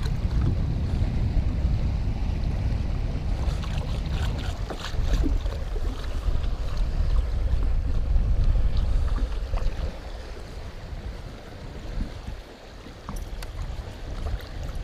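Wind buffeting the microphone in a low, uneven rumble over water lapping against the side of a fishing boat, with a few light clicks and splashes around the middle and near the end.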